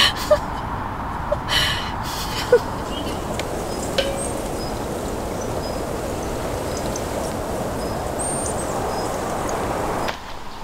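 Steady rushing outdoor ambience with a few faint, short high chirps and light clicks. It drops away suddenly near the end.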